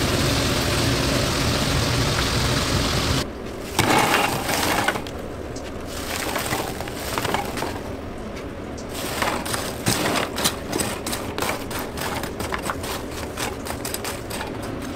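Steady roar of a commercial kitchen burner under a wok of frying oil. It drops away after about three seconds and is followed by a brief loud rush of noise. Then comes a long run of light clicks and crackles from crisp fried sweet potato wedges clattering on a metal wire rack.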